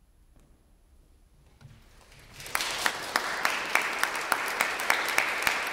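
Near silence, then an audience breaks into applause about two and a half seconds in, with a few sharp claps standing out above the rest at about three a second.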